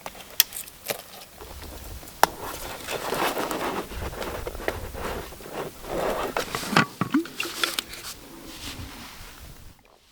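Rustling and scraping with many sharp clicks and knocks, as of things being handled and moved close to the microphone.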